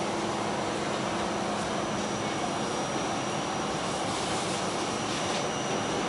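Steady whir and hiss of an R46 subway car standing at a station, its ventilation and auxiliary equipment running, with a few faint steady tones.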